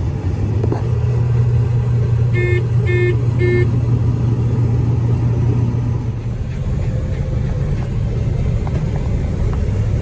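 John Deere 9500 combine harvester running with a steady low drone. About two and a half seconds in, three short electronic beeps sound about half a second apart.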